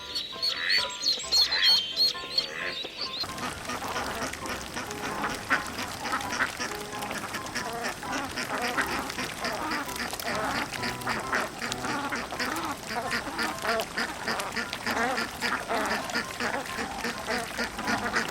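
A flock of ducks quacking together, many birds calling over one another in a dense, continuous chatter. The chorus starts abruptly about three seconds in; before that there is a different, sparser sound.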